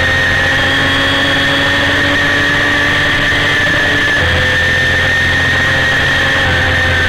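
1990 Honda CBR250RR's 250 cc inline-four engine held at high revs, heard from the bike itself, with a slight dip in pitch about four seconds in, over wind rushing on the onboard camera's microphone.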